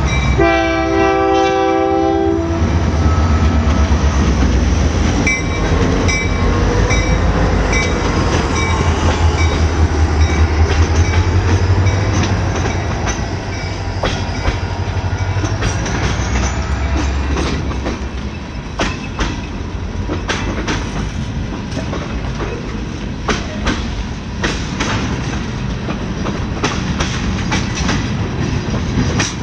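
Union Pacific GP40N diesel locomotive's horn chord, which stops about two seconds in. Then the engine's low rumble passes close by, followed by freight cars rolling past with wheels clacking over the rail joints.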